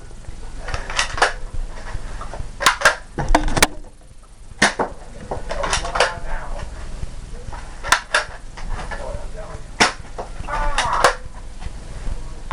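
Scattered sharp clicks and knocks, a dozen or so, several in quick pairs, from toy Nerf blasters being primed and fired and their foam darts striking things, with a few faint voices.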